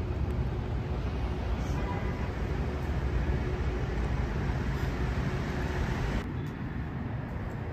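City street ambience: a steady low rumble of road traffic, which drops a little about six seconds in.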